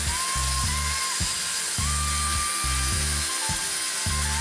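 Background music with a pulsing bass line, over a handheld electric circular saw running as it cuts a board.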